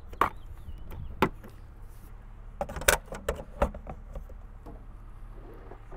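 A DC fast-charger's CCS plug being pulled from an electric car's charge port and hung back in the charger's holster: a series of sharp plastic clicks and clunks, most of them close together about three seconds in, over a steady low hum.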